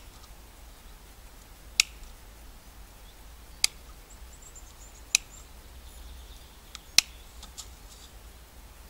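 Cheap shears snipping through the thin steel wires of a disposable-grill mesh: four sharp snaps, one every second and a half or so, with a few smaller clicks between.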